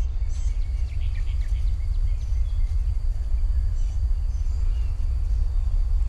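Outdoor ambience dominated by a steady low wind rumble on the microphone, with a few short bird chirps and a faint, steady high insect drone.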